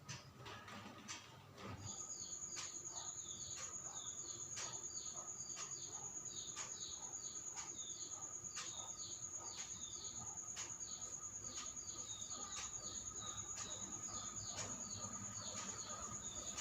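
A steady, high insect trill comes in about two seconds in. Short chirps repeat about twice a second over it, and faint ticks come about every two seconds.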